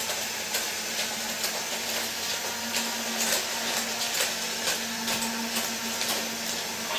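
Toy monorail trains' small electric motors whirring steadily as they run along the track, with a held low hum and faint irregular clicks.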